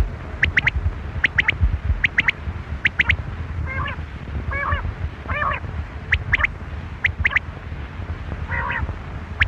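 Quail calling, a quick three-note call repeated about once a second, with four lower, harsher calls in between. A steady low rumble runs underneath.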